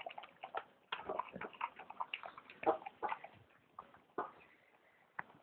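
Dog eating wet food from a stainless steel bowl: irregular chewing and lapping, heard as a run of short wet clicks and snaps.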